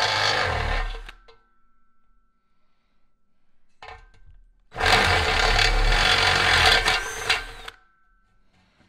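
DeWalt cordless drill with a step drill bit cutting through a chrome light bar, in two runs. The first winds down about a second in; the second runs from just before the middle until near the end.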